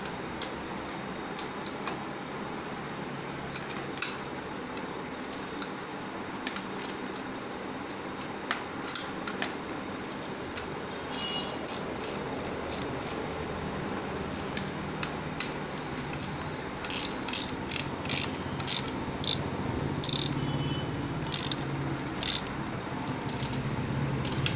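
Irregular sharp ratchet-like clicks from a bicycle being assembled, over a steady background hiss. The clicks are scattered at first and come in quicker clusters in the second half.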